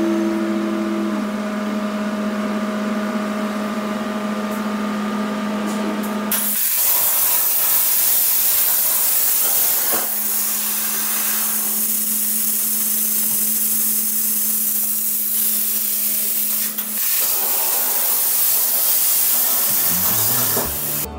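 A steady hum for about six seconds, then a Primeweld Cut60 air plasma cutter's torch fires and runs a loud, steady hiss as its arc cuts 10-gauge steel plate at 40 amps. The hiss stops just before the end.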